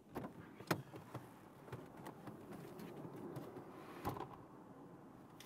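Car door being unlatched and opened with sharp clicks as a passenger gets out, then a heavier thud about four seconds in.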